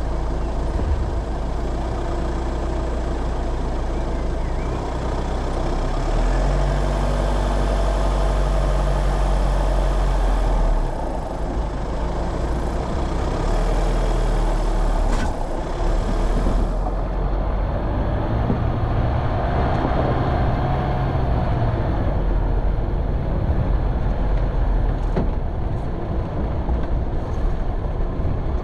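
Off-road vehicle's engine running under load over rough ground, its note shifting up and down several times as the revs change. There is a single sharp knock about fifteen seconds in.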